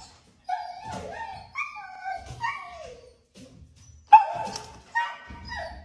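Dog whining and yelping in a run of rising and falling cries, wanting to be let out the front door for its walk, with a sudden loud bark about four seconds in.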